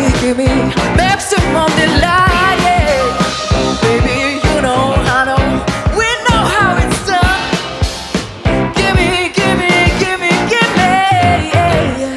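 A live rock band playing loudly: a drum kit beating a steady rhythm under keyboards and electric guitar, with a melodic line that bends and wavers in pitch.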